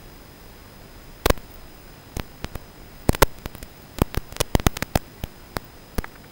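Static on the FPV video link's audio: a steady hiss with a thin high whine, broken by about a dozen sharp, irregular crackling clicks, bunched most thickly between about three and five seconds in.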